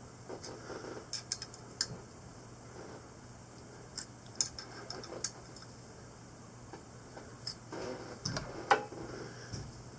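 Scattered small metallic clicks and taps of a hex key working the screws of steel scope rings on a rifle, with a louder knock near the end.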